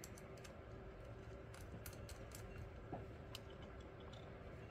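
Faint, scattered light clicks and taps of small 3D-printed plastic parts and a nut being handled and fitted onto a bolt by hand, over a low steady hum.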